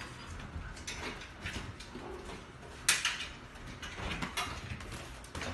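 Pets' claws scrabbling and scraping at a window and its frame, an irregular clatter with one sharp knock about three seconds in.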